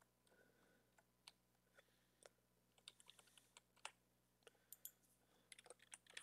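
Faint computer keyboard keystrokes, scattered single taps at an uneven pace, a little denser around the middle and near the end.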